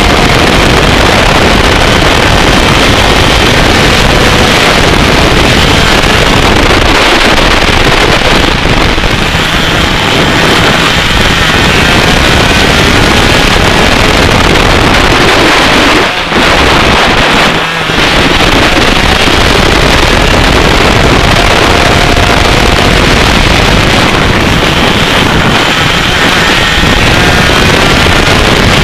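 125cc two-stroke racing kart engine running hard at speed, loud and heavily mixed with wind buffeting on the onboard microphone. The sound dips briefly twice just past the middle.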